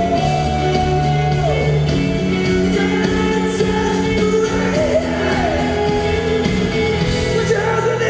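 Live pop-rock band playing, with a man singing at the microphone over acoustic guitar and the band, recorded from the audience in a concert hall.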